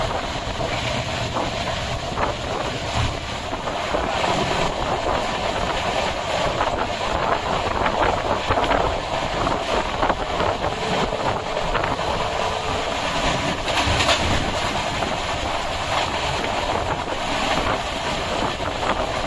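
Passenger train coach running at speed: a steady rumble of wheels on the rails, with wind noise on the microphone.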